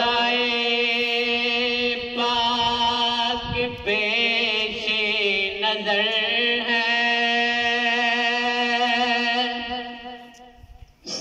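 A man's voice singing a naat unaccompanied into a microphone, drawing out long held notes with wavering ornamented turns. The singing fades out about ten seconds in.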